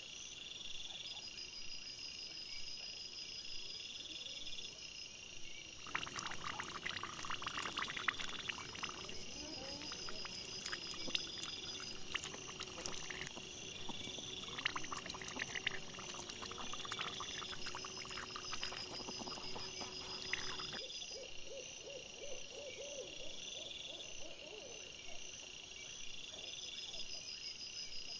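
Night insects chirping in a steady, regularly repeating pattern, high in pitch. From about six seconds in until about twenty-one seconds, wild boar foraging close by add a dense run of rustling, clicking and crunching as they root and feed, which then stops abruptly.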